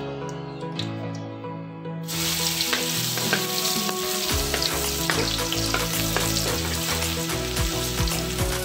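Chopped garlic sizzling in hot oil in a steel wok, the sizzle starting suddenly about two seconds in, with a metal spatula stirring and scraping the pan from about halfway through. Background music with steady tones plays throughout.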